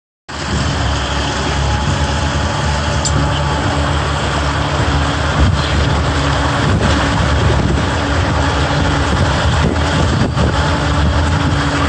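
Twin Honda four-stroke outboard motors running steadily as the speedboat moves under way, with a low, even engine drone under the rush of the churning wake.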